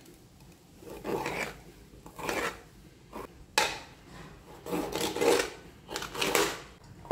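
A knife slicing a green bell pepper on a cutting board: a series of separate cuts, with a sharp tap of the blade on the board about three and a half seconds in.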